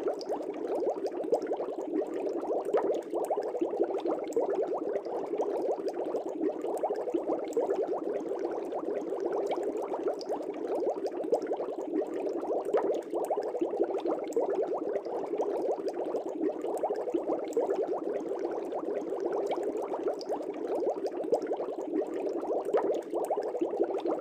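Aquarium air bubbles rising and popping at the water's surface in a steady, dense burble of tiny pops.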